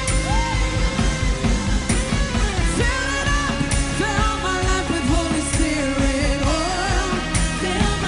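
Live worship band music with drums and a steady beat, with a voice singing wordless melodic lines over it.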